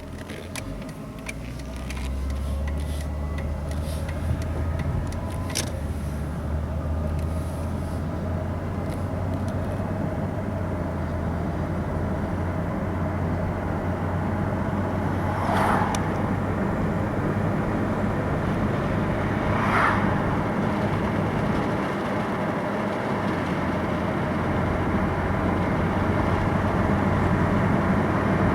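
A 2001 Ford Taurus's 3.0 V6 and road noise heard from inside the cabin while driving: a steady low hum with a noisy haze. Two short, higher-pitched sounds come a few seconds apart about halfway through.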